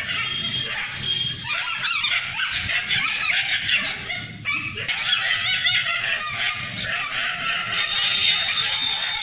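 Dogs fighting: a continuous tangle of high-pitched yelping, whining and barking, several voices overlapping without a pause.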